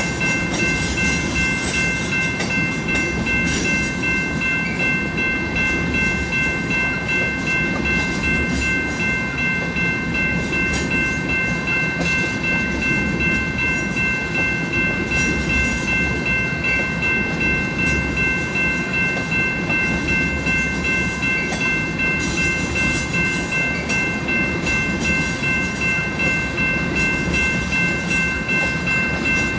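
A long string of loaded crude-oil tank cars rolling steadily past, with a low rumble and wheel clatter. Over it the grade-crossing warning bell rings continuously as a set of steady high tones.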